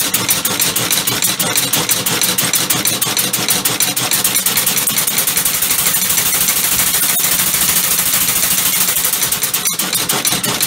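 Homemade crankshaft-type compressed-air piston engine running, its exhaust puffing in a fast, even rhythm with a strong hiss of escaping air.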